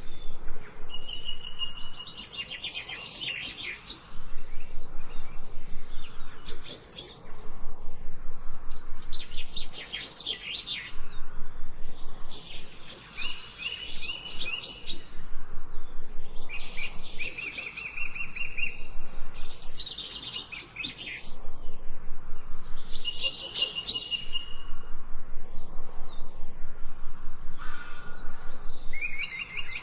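A songbird singing: repeated phrases of rapid, trilled chirps, each a couple of seconds long, coming every three to four seconds.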